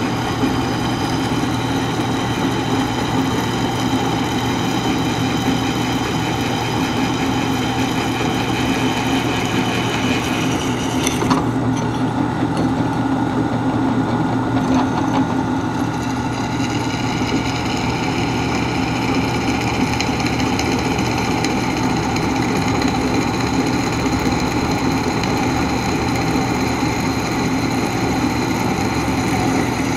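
Drill press running steadily with its 17/64-inch twist bit cutting through a small steel armor plate, a high ringing tone riding over the motor hum. The high tone breaks off about eleven seconds in and comes back a few seconds later.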